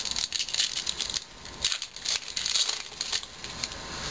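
Foil wrapper of a 2011 Topps baseball card pack crinkling as it is torn open and handled, with the cards being pulled out. A dense run of crisp crackles.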